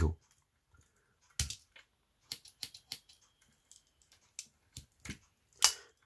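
Scattered metallic clicks and snaps of a Victorinox SwissFlame Swiss Army knife's tools being opened and closed, its scissors among them, with one louder snap about one and a half seconds in and a quick run of clicks just after.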